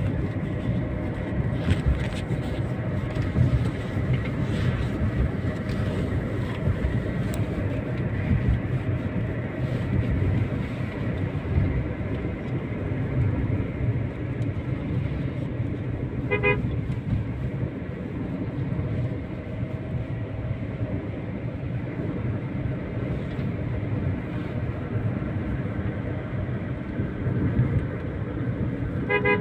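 Steady road and engine rumble heard inside a moving car's cabin, with a short vehicle horn toot about halfway through and another right at the end.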